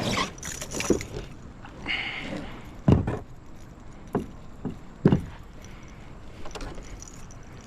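A handful of sharp knocks and clatters against a kayak, with a brief rustle between them, as a hooked bass is brought aboard.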